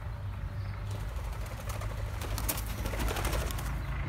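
Pheasants in an aviary, with a flurry of rapid wing flapping starting about a second in and lasting a couple of seconds, over a low steady hum.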